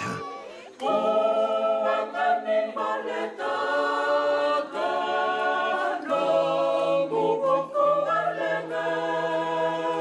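Mixed choir of men and women singing a hymn unaccompanied in harmony, holding long chords. It begins about a second in, and the men's low voices come in more strongly about six seconds in.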